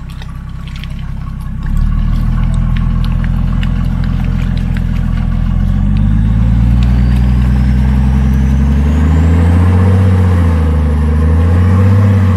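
Mercedes G-Class 3.5-litre diesel engine working under load as the truck pushes through deep mud and water, revs rising about two seconds in and then surging up and down in the second half.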